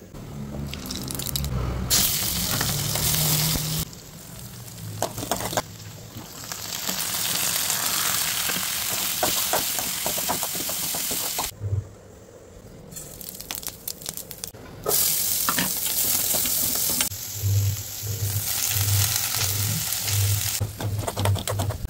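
Vegetables and leafy greens frying in hot oil, stirred with a spatula. The sizzle comes and goes in several short stretches, cut off abruptly between them, with scattered scrapes and taps of the spatula on the pan.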